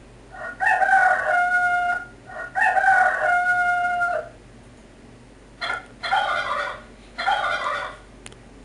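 Rooster crowing twice, each crow about a second and a half long with a held final note, followed by three shorter, rougher calls.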